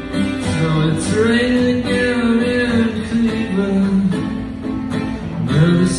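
Instrumental passage of a song: acoustic guitar strumming, with a sustained melody line that bends and glides in pitch over it.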